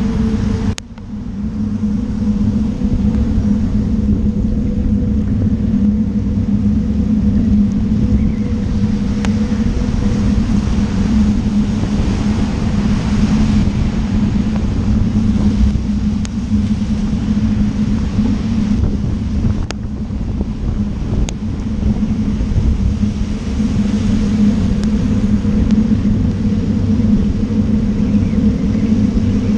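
Steady rumble of wet-road traffic and wind on a bicycle-mounted camera riding in rain among cars, with a few sharp clicks.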